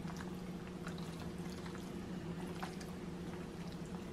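A spoon stirring saucy pasta in a skillet, with faint wet sounds and a few soft clicks of the spoon against the pan, over a steady low hum.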